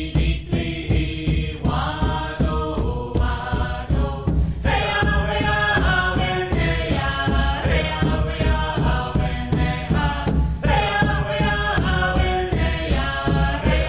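Background music of chanting voices.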